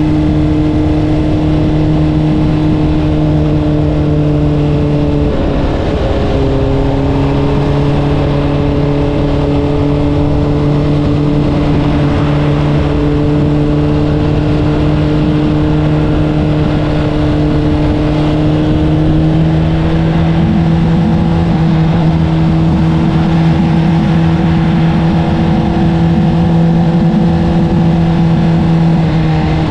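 Honda CBR600RR's inline-four engine through an Akrapovic exhaust, running at steady revs while riding. About six seconds in the note breaks briefly and drops lower, then slowly rises again.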